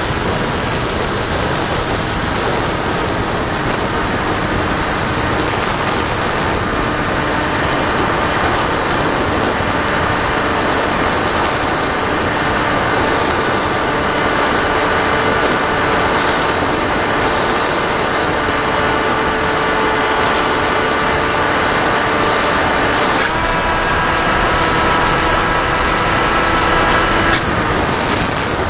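Onboard audio of a Firstar2000 RC model plane in flight: steady wind rush over the airframe mixed with the high whine of its motor and propeller. The whine drifts in pitch with the throttle and rises near the end.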